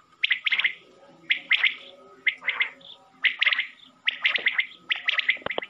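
Common quail calling: a short phrase of quick, sharp notes repeated about once a second, six times.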